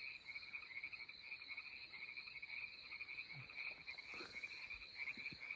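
Faint night chorus of frogs calling steadily as a fast, pulsing trill.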